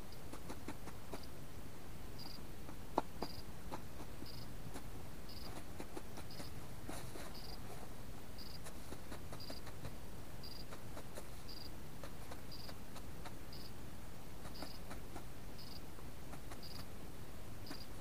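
Scattered soft clicks and taps, one sharper click about three seconds in, under a short high peep that repeats evenly about once a second.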